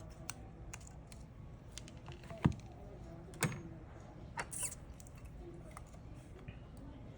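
Scattered light clicks and taps of small hand tools and parts during iPhone repair work, with two sharper knocks about two and a half and three and a half seconds in.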